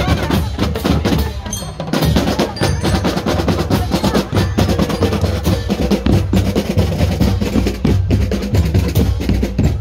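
Marching drum band playing: snare drums rattling quick strokes over a steady beat of bass drums. The drumming drops briefly near 2 s, then comes back louder.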